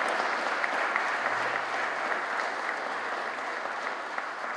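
Audience applauding, a dense patter of many hands clapping that gradually dies down.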